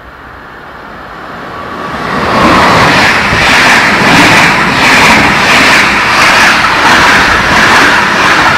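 Passenger train of red-and-cream Austrian coaches passing close along a station platform at speed. The noise builds over the first two seconds as the train arrives, then holds as a loud, steady rush with a beat about twice a second as the wheels go by.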